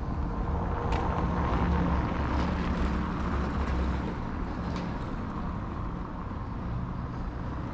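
Renault Zoe electric car rolling slowly past on a cobbled street, with tyre noise on the stones. It is loudest about two seconds in, then eases off.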